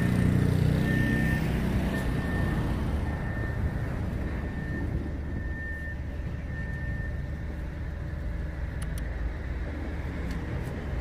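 Steady low rumble of street traffic, with a small motor scooter engine passing and fading over the first couple of seconds. A faint high tone comes and goes over it.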